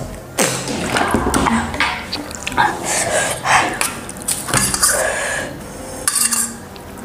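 Metal spoon scraping and clinking against a stainless steel bowl and plate, in irregular strokes while scooping up noodles.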